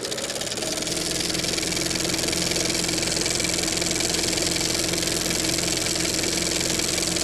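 Motorcycle engine running steadily, its pitch rising a little over the first second and then holding.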